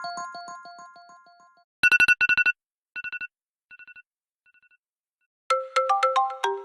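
iPhone 8 Plus ringtones playing one after another: a melodic ringtone of repeating notes fades out over the first second and a half, then a short tone of rapid high beeps sounds and repeats three times, each quieter, like an echo. About five and a half seconds in, another ringtone of quick melodic notes begins.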